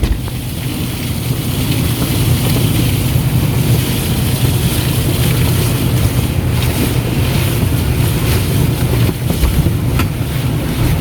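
Strong storm wind gusting and buffeting the microphone: a loud, steady rumbling roar, with a brief click about ten seconds in.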